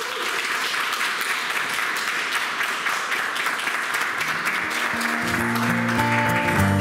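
Audience applauding, with outro music of sustained plucked-string notes fading in about five seconds in.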